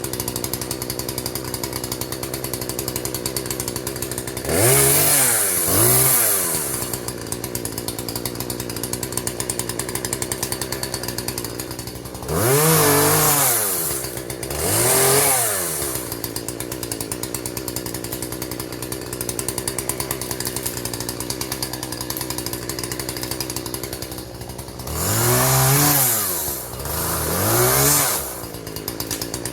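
Husqvarna 120 two-stroke chainsaw idling, revved up and dropped back to idle twice in quick succession, three times over.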